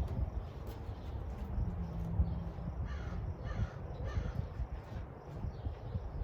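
A bird calling three times in quick succession, short harsh calls, over a steady low background rumble.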